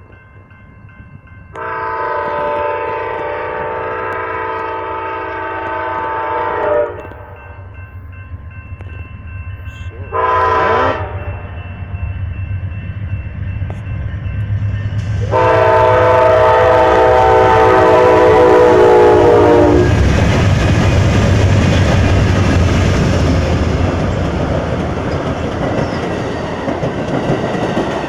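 Amtrak passenger train led by two Siemens Charger diesel locomotives sounding its multi-chime air horn: a long blast, a short one, then another long one. The train then passes, its wheels rushing and clacking over the rails.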